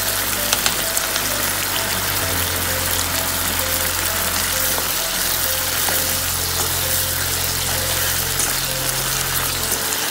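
Mushrooms in sauce sizzling steadily in a frying pan as butter melts in, a dense crackle. Soft background music with a low bass line plays underneath.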